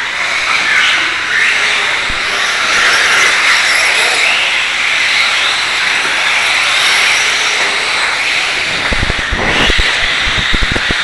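Radio-controlled trucks running on the track, a steady high whine of motors and tyres with some rising and falling revs. Knocks and rubbing from the camera being handled come in near the end.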